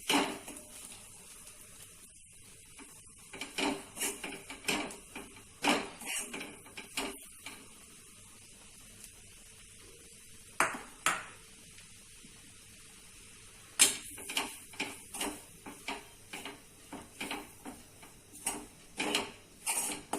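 A metal spoon clinking and tapping against a kadhai in irregular strokes, some single and some in quick runs, with a loud knock about two-thirds of the way through, as roasted gram flour is added little by little to fried fenugreek leaves.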